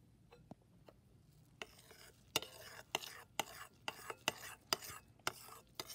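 Metal spoon stirring thick slime full of foam beads in a glass bowl, clicking and scraping against the glass. The clicks start about a second and a half in and come about two to three times a second.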